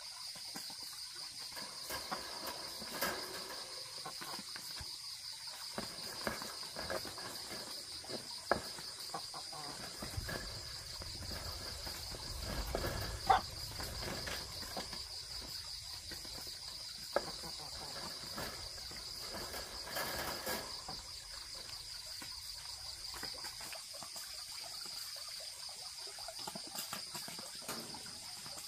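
Insects trilling steadily at a constant high pitch, with scattered small clicks and knocks; one sharper knock about 13 seconds in.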